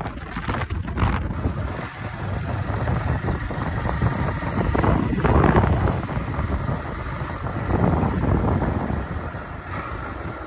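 A vehicle driving along a rough, steep dirt track: the engine runs under uneven knocks and rattles, with louder surges about halfway and near the end, and wind buffeting the microphone.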